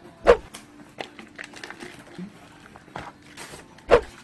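Packaging being handled while a bread maker is unboxed: scattered light rustles and small clicks, with two short, louder knocks, one just after the start and one near the end.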